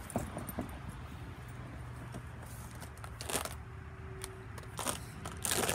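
Plastic packaging crinkling and rustling in short bursts, with a few light clicks, as tool accessories are unwrapped, over a low steady hum.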